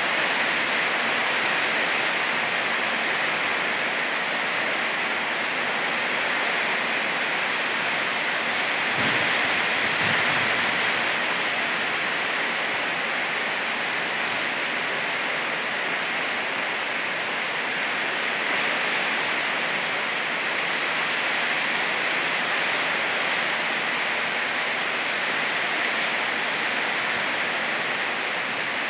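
Rain falling steadily, a constant even hiss with no letup.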